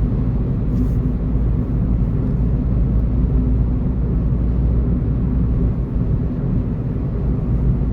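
A motor or engine running at a steady speed: a loud, even, low drone with a steady hum.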